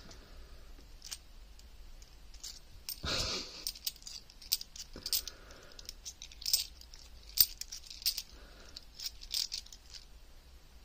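A stack of 50p coins being handled, the coins clicking and clinking against each other at irregular moments as they are slid apart one by one. There is a duller handling noise about three seconds in.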